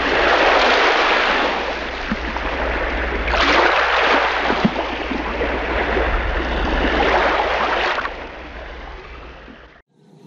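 Surf washing up on a beach, swelling about every three to four seconds, then fading away near the end.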